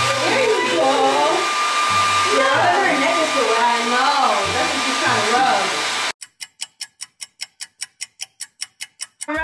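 Handheld hair dryer blowing steadily, with music playing underneath. About six seconds in it cuts off abruptly and a rapid clock-ticking sound effect follows, about five ticks a second.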